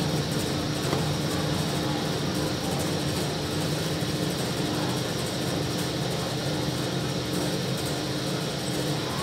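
A machine running steadily: a low hum with a faint even tone, under an even noise that does not change.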